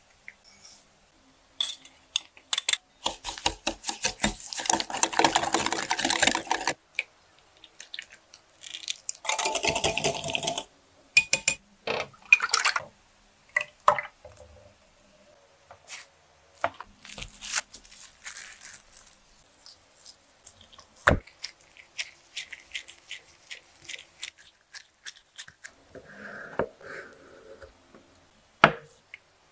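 Custard-making sounds at a counter: an egg cracked and separated over glass bowls, two spells of fast, busy stirring against a bowl, and custard poured through a sieve into a plastic measuring jug, with scattered clinks and taps of utensils and a few sharp clicks.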